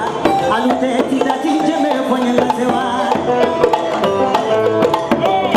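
Live Malian band music: plucked string lines over hand percussion with quick, clicking strikes, and little or no lead singing.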